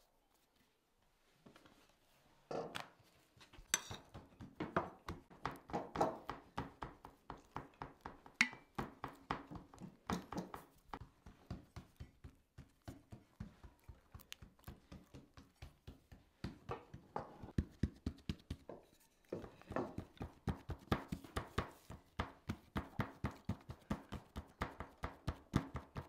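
Rapid, even tapping: soft knocks at about five a second, quieter in the middle and pausing briefly about three quarters of the way through.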